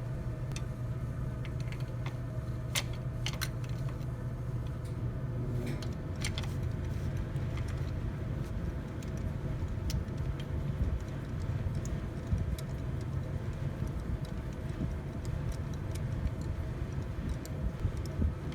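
Scattered light metallic clicks and rattles of a spark plug socket and extension being turned as a new spark plug is threaded into the cylinder head by hand, over a steady low hum.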